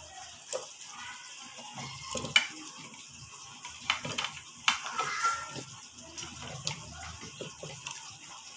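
Chunks of bottle gourd dropped by hand into thick cooked dal in a pressure cooker: a string of wet plops and splashes with small knocks, the sharpest about two and a half seconds in.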